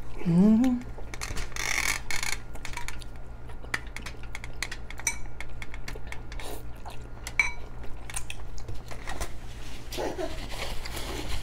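Metal forks clinking and scraping against glass bowls while two people eat noodles, with slurping as strands are sucked in. There is a short vocal sound at the very start and more murmuring near the end.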